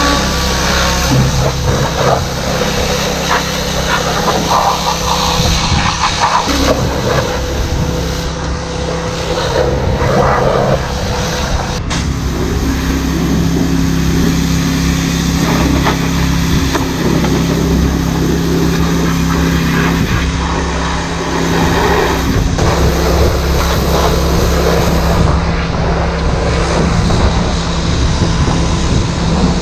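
A White farm tractor's engine running steadily, its note shifting slightly about twelve seconds in.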